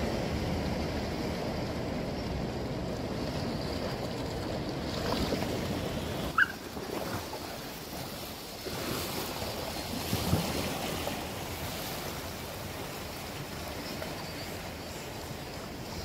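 Ocean surf washing on a rocky shore, with wind on the microphone. There is a brief sharp high-pitched click about six seconds in, and a short low sound about ten seconds in.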